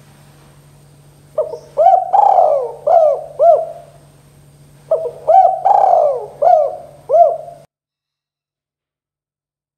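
Spotted dove cooing: two phrases of four or five rising-and-falling coo notes each, with a short pause between them. The sound cuts off suddenly near the end.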